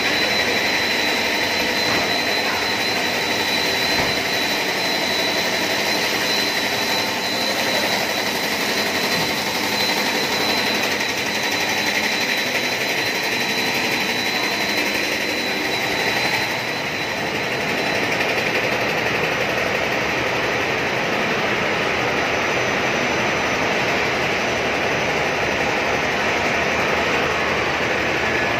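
Steady running noise of snack-production-line machinery, motors and fans with a broad hiss. A thin high whine carries along with it and fades out a little over halfway through.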